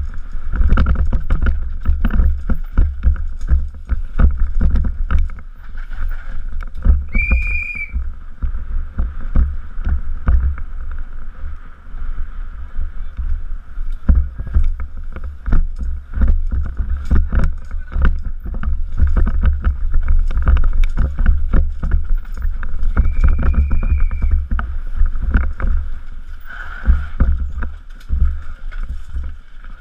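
Downhill mountain bike descending at speed, heard from a helmet camera: wind buffeting on the microphone, with constant rattling and knocks as the bike hits steps and rough ground. A short high squeal sounds twice, about seven seconds in and again near twenty-three seconds.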